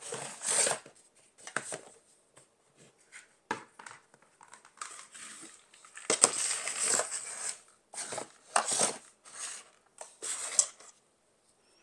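Gourds being handled and set into a large wooden bowl: irregular knocks, clatters and rustling, with a longer stretch of handling noise about six seconds in.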